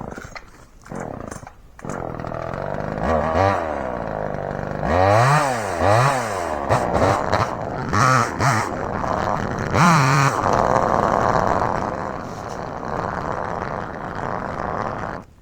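Gas chainsaw cutting through a tree. It catches about two seconds in, revs up and down several times as it works the cut, then shuts off suddenly near the end.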